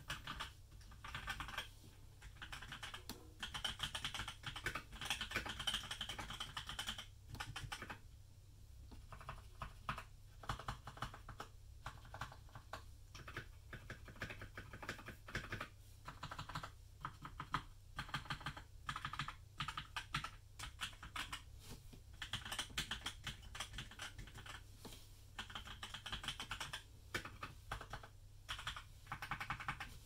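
Typing on a modded Filco Majestouch mechanical keyboard with Krytox 205g0-lubed NovelKeys Cream linear switches on a polished brass plate. Dense runs of keystroke clacks come in bursts, with brief pauses between them.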